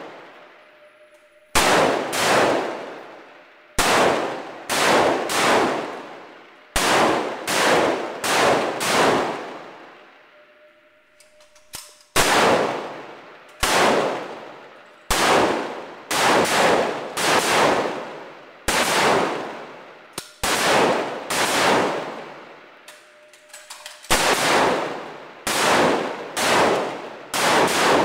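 Rifle shots fired from several shooters along a firing line, each sharp crack trailing off in a long echo. The shots come in clusters of two to six, roughly two a second, with pauses of a couple of seconds between clusters, about thirty-five shots in all.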